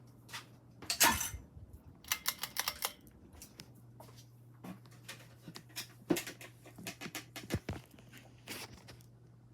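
Clicks, knocks and rustling from something being handled and moved, the loudest knock about a second in and a quick run of clicks soon after. Under them a steady low hum from the running ceiling fan's motor.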